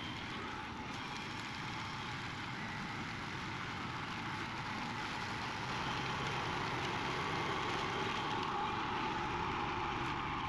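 A 30-year-old hammer knife mower running steadily as it shreds cut Simon bamboo canes, getting a little louder about halfway through.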